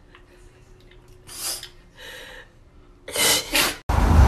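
French bulldog sneezing and snorting: a sneeze a little over a second in, a weaker snort, then a loud double sneeze about three seconds in. Near the end, loud wind rush on the microphone from a moving car starts abruptly.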